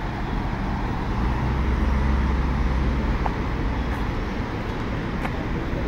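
City road traffic: a steady rumble of passing cars and scooters, swelling a little about a second in.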